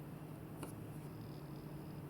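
Low steady hum with one faint click a little over half a second in, in a lull between the sharp clacks of the marble run.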